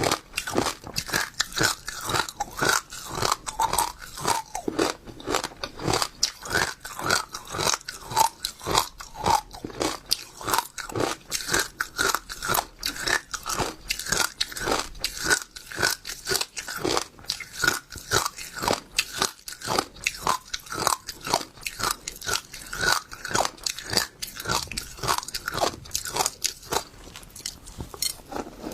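Close-miked chewing of crunchy passion fruit seeds: a steady run of sharp crunches, about three a second, as the seeds are bitten and crushed between the teeth.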